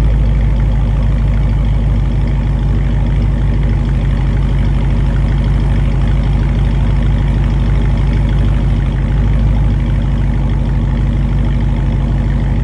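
2021 Dodge Durango's Hemi V8 idling steadily through an exhaust with the mid muffler and resonators cut out, a deep, unchanging rumble with no revving. It is a little loud, made louder by running inside a shop building.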